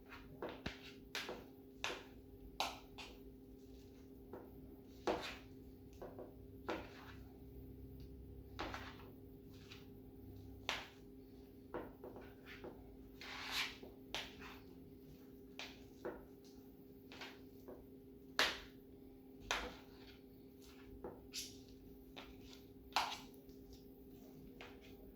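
Spoon stirring a thick cream cheese, spinach and cheese filling in a bowl: irregular clicks and knocks of the spoon against the bowl with some soft scraping, over a steady low hum.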